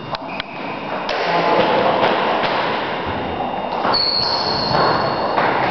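Table tennis rally: the 40 mm celluloid ball clicks sharply off bats and table at irregular intervals of roughly a second, over a steady din of hall noise. A high squeal comes in about four seconds in and lasts over a second.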